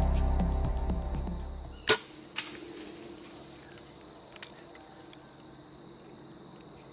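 Background music fades out, then a bow is shot: a sharp snap of the released string about two seconds in, followed half a second later by a second smack as the arrow strikes, here after a shot that missed low under the deer. A couple of faint ticks follow.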